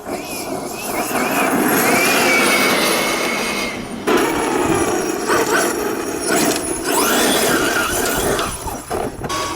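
1/5-scale electric RC buggy running on 12S through a Hobbywing Max5 G2 800kV brushless system. The motor and drivetrain whine rises and falls with the throttle over tyre noise, easing off briefly twice.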